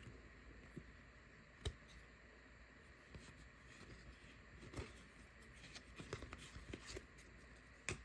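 Faint handling of trading cards: soft scattered ticks and light rustles as cards are shuffled through, with a sharper tap about a second and a half in and a quick run of small ticks past the middle.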